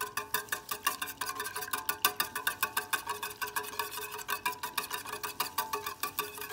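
Wire whisk clinking rapidly against a stainless steel saucepan, about five strokes a second, the pan ringing with each stroke, as eggs and citrus juice are whisked for a citrus curd.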